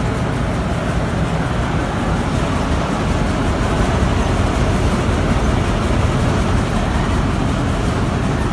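Freshly overhauled Petkus K527 grain and seed cleaning machine running at working speed: a steady, even mechanical clatter and rumble.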